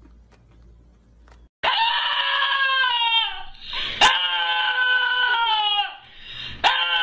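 Small long-haired white dog howling: long, high, wavering howls that sag in pitch as each one ends, two in a row, with a third starting near the end. They come in after about a second and a half of quiet.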